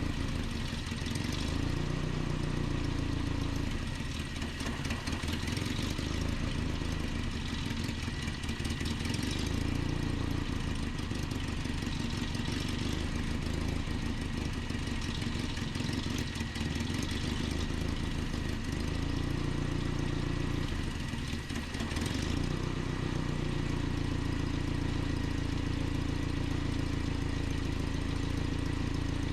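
The 2.4-litre four-cylinder Z24 engine of a 1988 Nissan D21 truck idling, its note unsteady and dipping and recovering a few times.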